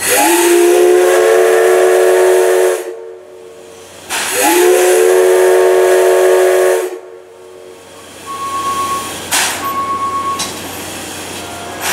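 C11 steam locomotive's whistle sounding two long blasts of about two and a half seconds each, the pitch rising slightly as each blast opens. After them comes a quieter steady hiss with a single sharp click.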